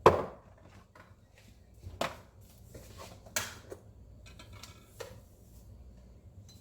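Kitchen utensils knocking and clinking against cookware, a few sharp separate knocks a second or so apart, the first the loudest, as seasoning goes into the soup pot.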